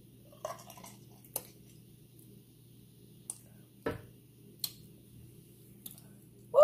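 Soft wet mouth sounds after a drink of juice: a swallow and scattered sharp lip-smacks and clicks, over a low steady hum. A short loud voiced sound cuts in at the very end.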